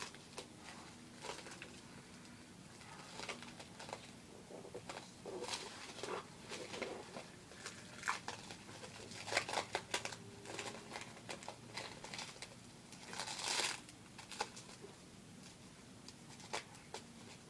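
Plastic wrapping crinkling and tearing as it is pulled off a book by hand, in irregular rustles and crackles with a longer rustle about three-quarters of the way through.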